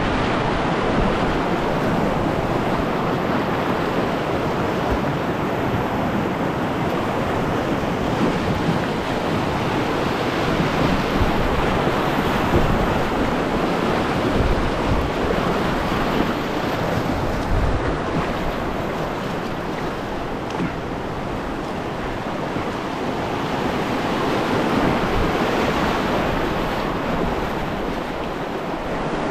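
Whitewater rushing over and around rocks in a river rapid, heard from a kayak running it: a steady, loud wash of moving water.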